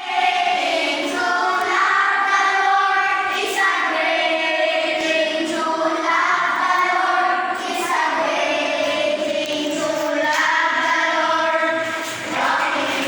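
Loud videoke singing in high voices, holding long drawn-out notes.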